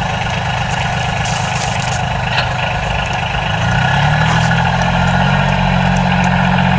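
Low, steady engine-like drone of a toy truck setting off, stepping up in pitch and getting a little louder about three and a half seconds in.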